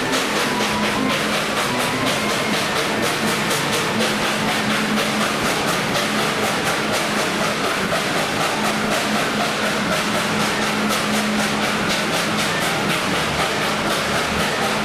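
Tweetsie Railroad's narrow-gauge steam train running, a steady rumble and rail clatter from the coaches, with a rapid run of light ticks.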